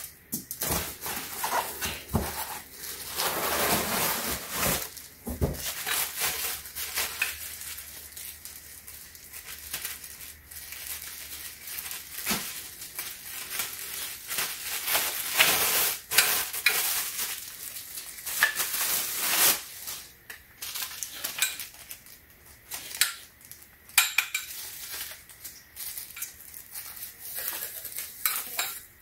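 Plastic wrapping rustling and crinkling as a folded metal speaker tripod stand is unpacked, with many sharp clinks and knocks from its metal legs and fittings.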